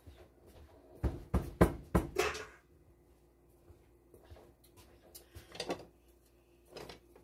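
Kitchen knocks and thumps: a quick run of four or five heavy knocks about a second in, then a few fainter clicks and clatters later.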